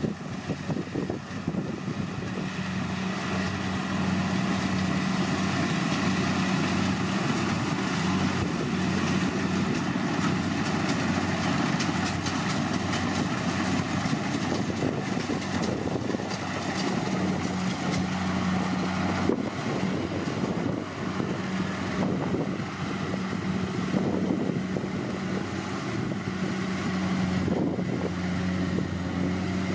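Kubota DC70 Plus combine harvester working through rice: a steady diesel engine hum mixed with the noise of its cutting and threshing machinery, growing louder over the first few seconds.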